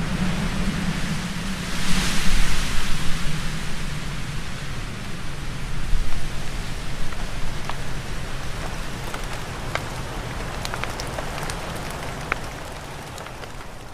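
Rain falling steadily, with scattered drops tapping as they drip off a roof edge. The rain swells louder and brighter about two seconds in, then gradually eases and fades out at the end.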